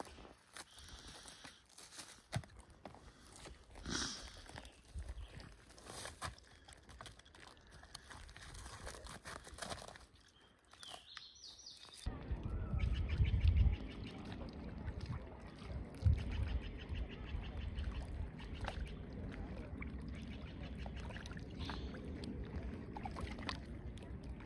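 Quiet forest background with a few scattered soft crunches and clicks and a short bird chirp. About halfway through it changes to wind rumbling on the microphone, with water lapping and splashing around an inflatable kayak on a lake.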